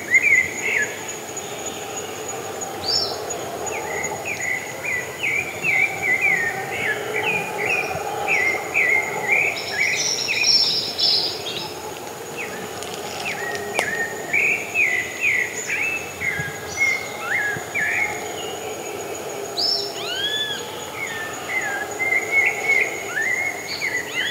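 Pale-breasted thrush singing: a long run of short, quick, varied phrases, with a steady high insect trill beneath.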